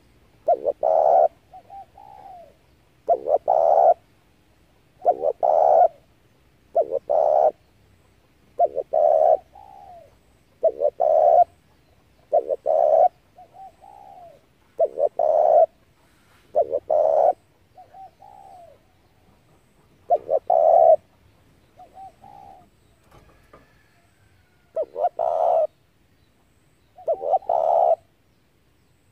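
Spotted dove cooing its song over and over, each phrase two or three loud low coos often ending in a softer trailing note, about one phrase every two seconds.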